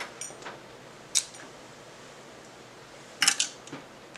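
Small hard makeup containers clicking and clinking as they are handled: a few scattered sharp taps, then a quick cluster of clinks about three seconds in.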